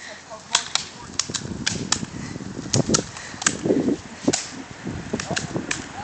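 Airsoft guns firing: about a dozen sharp, irregular pops and snaps in quick succession.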